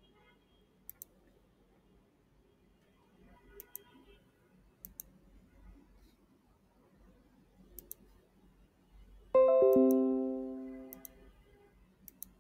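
A few faint clicks, like a computer mouse, spread through the quiet. About nine seconds in comes a bright computer notification chime: several notes sounding together that ring and fade away over about two seconds.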